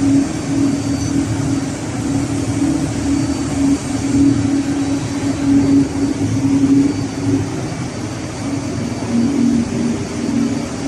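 Steady loud drone of running ship's engine-room machinery, a constant hum that wavers slightly in level.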